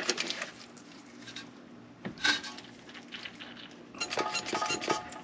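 Light metallic clicks and clinks from brake bleeding work with a vacuum bleeder, drawing old brake fluid out of the caliper. There are a few scattered clicks, then a quick run of rapid clicking near the end.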